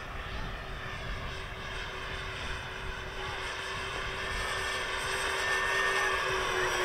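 Twin electric motors and propellers of a 63-inch RC P-38 Lightning in flight, a steady whine that grows louder as the plane comes closer, peaking near the end.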